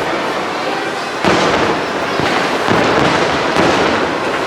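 Aerial fireworks going off in a steady dense crackle. Sharp bangs stand out about a second in, and again near three and three and a half seconds.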